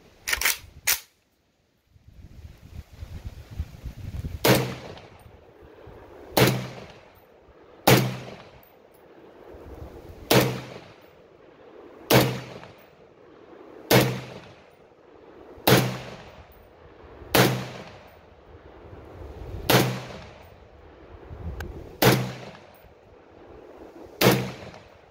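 Romanian WASR-10/63 AK-type rifle in 7.62x39 fired semi-automatically, about eleven single shots roughly two seconds apart, each with a long echoing tail from shooting under a roof. Two sharp cracks come right at the start, followed by a second-long dropout.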